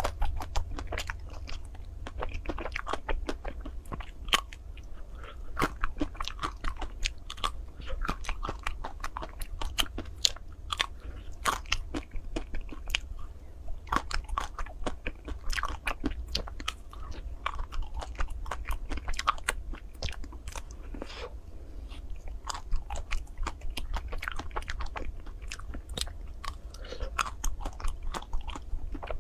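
Close-up biting and crunching into the crisp chocolate shell of ice cream bars, with chewing. Irregular sharp cracks come in quick succession throughout, over a steady low hum.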